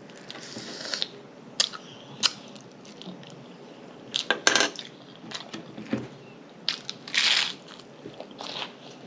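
Close-miked chewing of a mouthful of food, with scattered wet lip smacks and mouth clicks and a longer breathy smack a little after seven seconds in.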